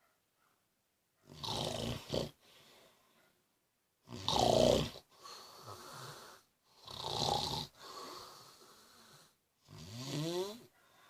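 A man snoring in his sleep: four loud snores about every three seconds, each followed by a softer breath out. The last snore rises in pitch.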